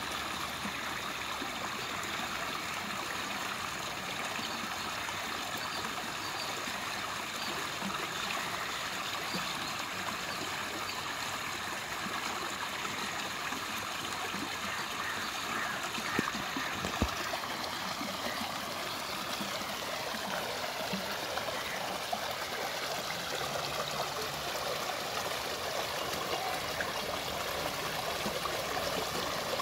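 Rainwater pouring steadily out of a drain opening into a flooded gutter, splashing and gurgling. Two brief knocks a little past the middle.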